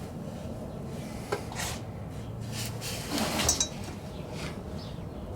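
Light handling noises: a sharp click about a second in, then a louder rubbing and clattering stretch around three seconds.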